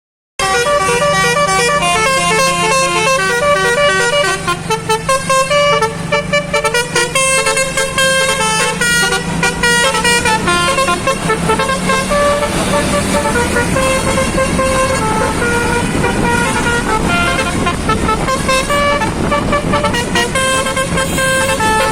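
A bus's telolet basuri multi-tone air horn playing a melody of quick stepping notes, starting abruptly and running on without a break. A low steady hum sits beneath the notes for about the first half.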